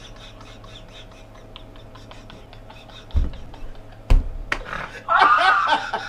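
Two people laughing hard: for the first few seconds near-silent breathy laughter with faint clicks, then two heavy thumps about three and four seconds in, then loud open laughter near the end.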